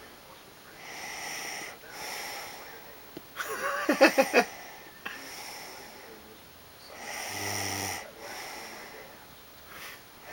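A woman snoring in her sleep: slow breaths in and out, some inhales with a low buzz. About a third of the way in comes one louder, stuttering snort.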